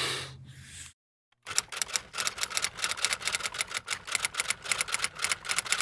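Typewriter clacking: a rapid, uneven run of sharp key clicks that starts about a second and a half in and keeps going. It is preceded by a brief hiss with a low hum and a short silence.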